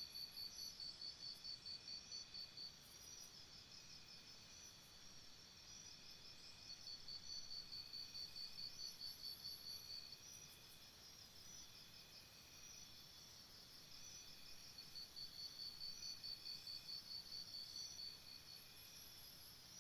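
Crickets chirping faintly. One chirps in a quick, even pulse of about five a second, in three spells of about three seconds each, over a fainter, steadier chirping of others at different pitches.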